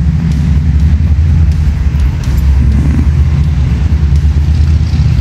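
Yanmar mini excavator's diesel engine running steadily with a low, even drone.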